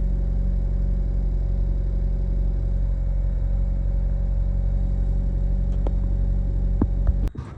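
Car engine running at a steady, even speed, with a low steady hum and no revving; it cuts off abruptly near the end.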